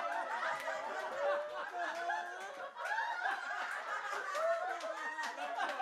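A group of people laughing together, several voices overlapping.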